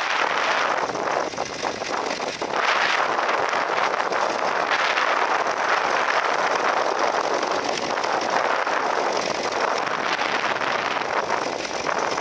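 International B-275 tractor's engine running steadily under load as it pulls a mounted plough through the soil, mixed with wind rushing on the microphone.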